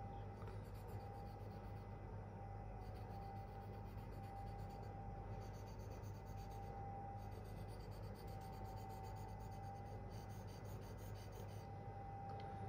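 K390 steel edge of a Spyderco Endura being stroked across a fine-grit Venev F800 sharpening stone, a quiet scraping in runs of quick strokes with short pauses between, as the edge is refined toward a polish.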